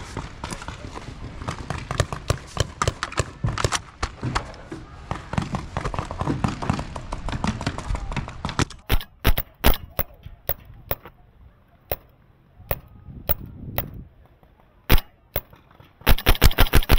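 Paintball markers firing: scattered single shots from about nine seconds in, then a fast string of about ten loud shots near the end. Before the shots, a busy rustling noise.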